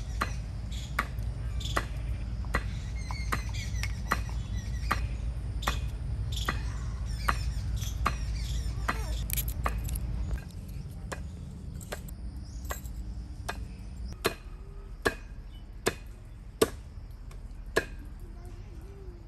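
Wooden mallet pounding raw chicken on a stone block, a steady rhythm of dull knocks at a little more than one a second, flattening the meat by hand for chapli kabab. The last few blows stand out sharper and louder.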